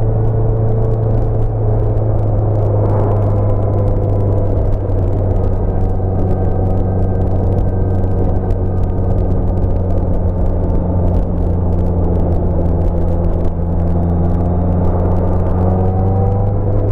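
Honda CBR650F inline-four engine running steadily at cruising speed, heard from the bike with wind rush over it. Its note rises a little near the end as the throttle opens.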